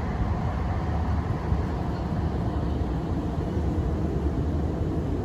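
Wind buffeting the microphone as it moves along on a bike: a steady low rumble.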